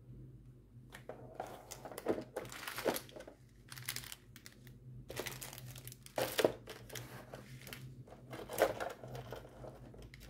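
Plastic packaging of a diamond-painting kit crinkling and rustling as it is handled, in irregular bursts with a few louder crackles.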